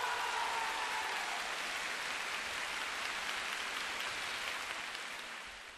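Audience applause in a concert hall, a dense steady clatter of clapping, with the band's final chord dying away under it in the first second or so; the clapping fades near the end.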